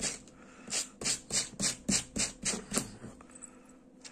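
A wooden-handled brush raking quickly through acrylic yarn strands, about three rasping strokes a second, stopping about three seconds in. This is the yarn being brushed out into fluffy fur on a crocheted dog's ear.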